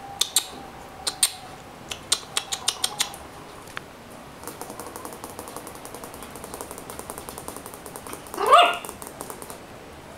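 Chihuahua puppies playing on a tiled floor, their claws clicking and skittering on the tiles: a few sharp clicks, then a quick run of ticks. About eight seconds in, one of the dogs gives a short yelp that rises in pitch, the loudest sound.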